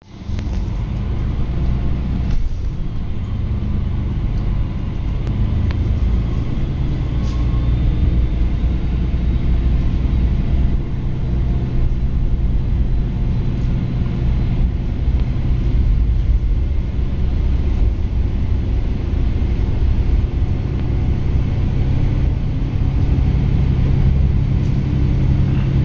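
Diesel railcar engine running steadily, a low hum heard from inside the passenger cabin.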